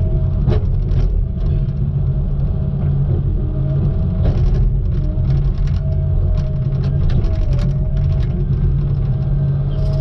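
Diesel engine of a Tigercat knuckleboom log loader running steadily under load, heard from inside the cab, with a faint steady whine over the rumble. Short knocks and clicks come scattered through it as the boom swings and the grapple works logs.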